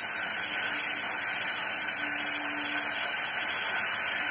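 Steady hiss of a lit gas stove burner, its flame turned down low.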